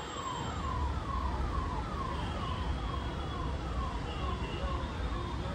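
A siren sounding in quick falling yelps, about two a second, over the low rumble of the moving passenger train.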